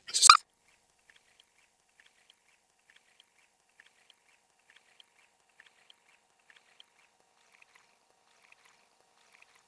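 Faint, irregular peeping of young chickens, a short call every half second or so, after a brief loud scrape at the very start.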